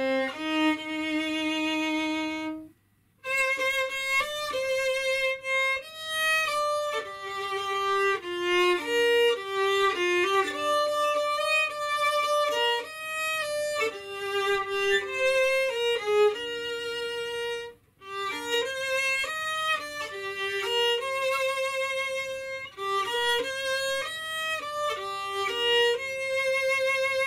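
Solo violin, bowed, playing a slow melody of held notes with vibrato, with two brief pauses between phrases about three seconds in and again near eighteen seconds; it ends on a long held note.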